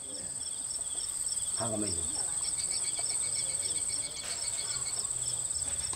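Crickets and other night insects chirping: a continuous high trill with a second, rhythmic pulsing chirp beneath it.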